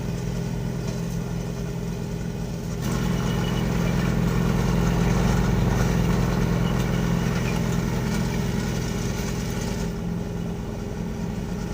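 A steady engine hum, like a motor idling. It grows a little louder about three seconds in and eases off near the end.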